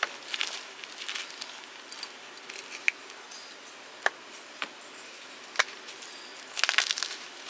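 Blocks of gym chalk being crushed: scattered crunching in the first second, then single sharp snaps a second or so apart, and a dense burst of crumbling crunches near the end.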